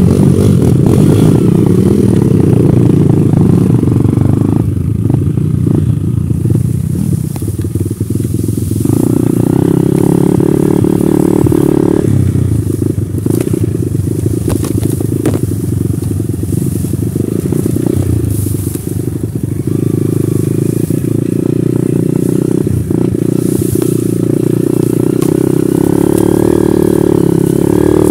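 Dirt bike engine running loud as it is ridden along a narrow grassy trail, the engine note stepping up and down several times with the throttle.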